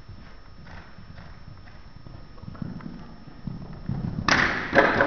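Horse's hoofbeats thudding on soft arena footing as it canters up to a show jump, then a loud burst of noise about four seconds in as it takes off and clears the fence.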